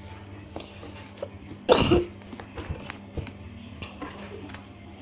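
A single loud cough a little under two seconds in, over a run of small sharp clicks and pops, typical of slime being squished.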